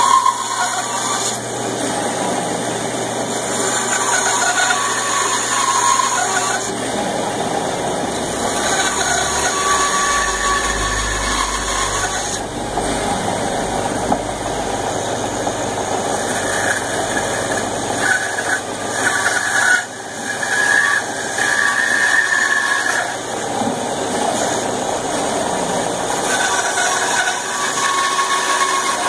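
Band saw running and cutting into a wooden board, making a series of notch cuts. A higher whine comes and goes over the steady running noise as the blade works through the wood.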